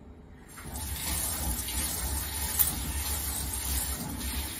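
Tap water running from a kitchen faucet into a stainless steel sink, coming on about half a second in and then running steadily as it splashes over hands held under the stream.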